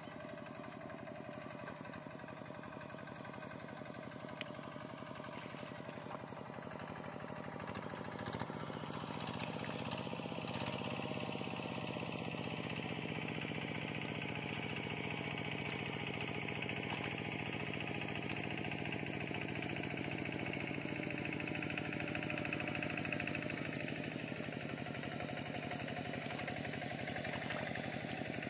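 An engine running steadily, with a continuous low drone that grows louder about eight to ten seconds in and then holds.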